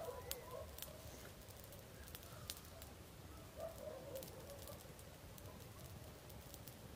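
Campfire crackling faintly with scattered sharp pops, and short, wavering animal calls in the night forest, once at the start and again about three and a half seconds in.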